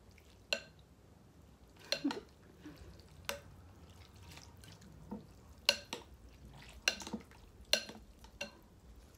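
Utensils clinking and tapping against a bowl of pho, about seven short, sharp clinks at irregular intervals, as the soup is stirred and served.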